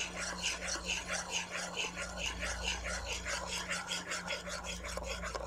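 Metal spoon stirring a thin cornstarch batter in a frying pan, scraping round the bottom in quick, even strokes of about four a second.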